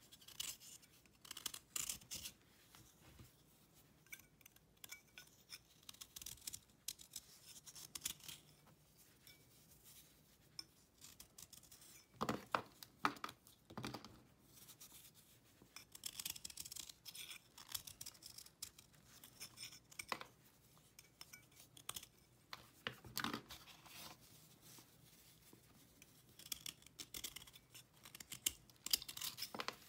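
A kitchen knife blade scraping shavings off a hard, dried cake of cleaning paste in repeated short strokes. Twice, near the middle and about two-thirds through, there are louder crunches as chalky chunks are broken up over a metal tray.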